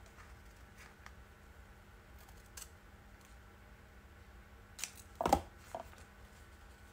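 Scissors snipping a strip of sticky-backed paper, a few faint short snips, with one louder sharp knock about five seconds in.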